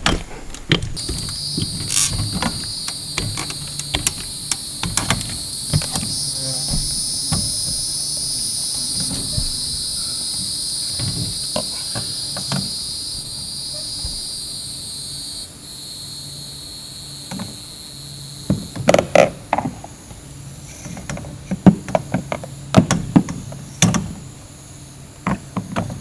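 Insects buzzing in a steady high-pitched chorus that drops away suddenly about two-thirds of the way through, over irregular knocks and clatters from someone climbing a trailer's rear ladder and moving about on its roof. The sharpest knocks come near the end.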